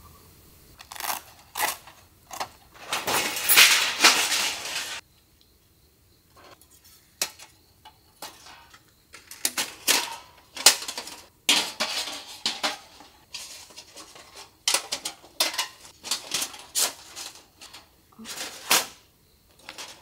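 Folding camp fire pit being set up: its thin steel stand and tray clinking and clattering against each other in a string of separate sharp clanks and rattles, with a longer, denser rattle a few seconds in.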